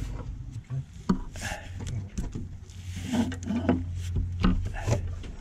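Scattered clicks and knocks of metal suspension parts and tools being handled while fitting a track rod end and drive shaft, over a low steady hum from about a second in until near the end.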